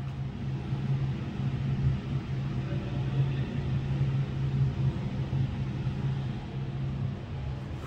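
Steady low hum with a soft rushing noise over it: the ambience of an aquarium gallery, from the tank pumps and ventilation.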